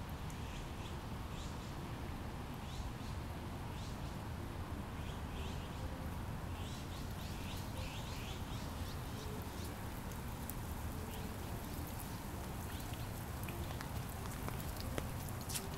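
Birds chirping in short, falling calls, many in quick succession around the middle, over a steady low rumble.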